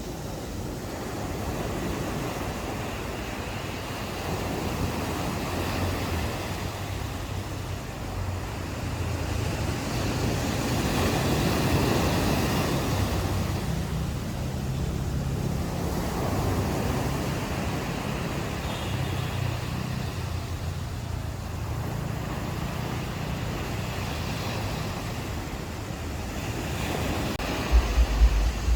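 Ocean waves breaking and washing up a shore, swelling and easing every few seconds, with wind. Near the end, a few low thumps of wind buffeting the microphone.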